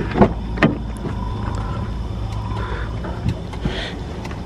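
Car engine idling with a low steady hum. Two short knocks come about a quarter and two-thirds of a second in, with a few light ticks.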